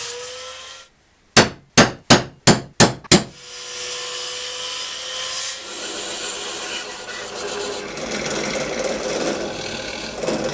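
About seven quick hand strokes rasping across wood, then power woodworking tools running steadily as they cut: a bandsaw cutting through a wooden strip, and a drill press boring holes near the end.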